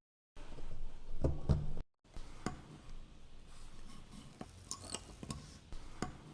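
Light clicks and taps of small wooden parts being handled and worked by hand, with a couple of duller knocks between one and two seconds in, broken by two brief silent gaps.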